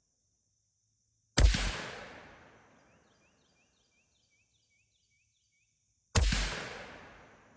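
Two rifle shots from a .223 Savage Axis II Precision fitted with a muzzle brake, about five seconds apart, each a sharp crack whose echo fades away over a second or so.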